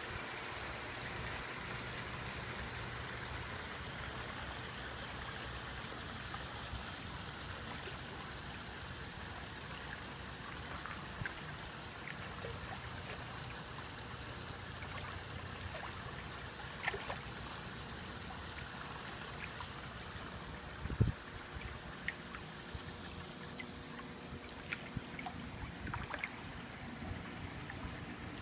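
Small garden-pond waterfall trickling and splashing steadily over rocks, with a few scattered clicks and a single low thump about three-quarters of the way through.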